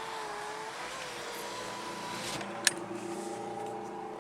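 Power window motor whining as an electric window runs, its pitch shifting lower a little over halfway through, with a single sharp click.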